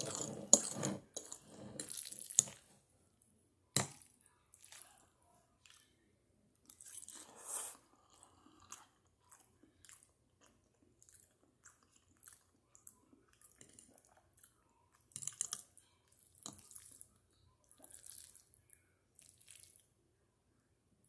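Chewing and wet mouth sounds of someone eating spaghetti, in short bouts with quiet gaps and busiest at the start, with a sharp click about four seconds in.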